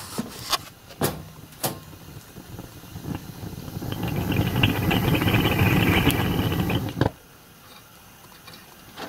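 Propane gas burner for a 5-inch gauge miniature steam locomotive, its multi-jet flame giving a steady rush that grows louder from about three and a half seconds in, then cuts off suddenly about seven seconds in as the gas is shut off at the valve. A few sharp knocks near the start.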